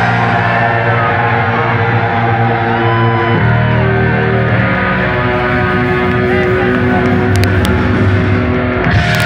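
Live punk rock band playing loud: electric guitar, bass guitar and drums together, with a chord change a little over three seconds in.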